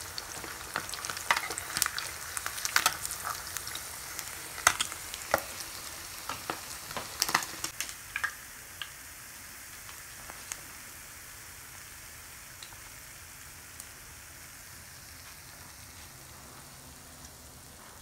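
Rohu fish steaks frying in hot oil in a pan: a sizzling hiss with frequent sharp pops and crackles. About eight seconds in, the crackling thins out, leaving a fainter, steady sizzle with an occasional pop.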